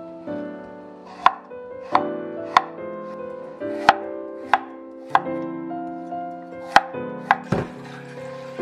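Kitchen knife chopping peeled burdock root on an end-grain wooden cutting board: about nine sharp knocks at uneven intervals, some in quick pairs.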